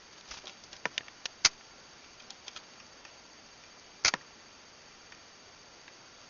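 A pet making a series of sharp clicking sounds: a quick irregular run of clicks in the first two and a half seconds, the loudest about a second and a half in, then one more loud click about four seconds in.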